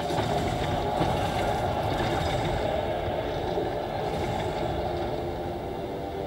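Low rumbling soundtrack with steady droning tones from a projection-mapping show's outdoor loudspeakers.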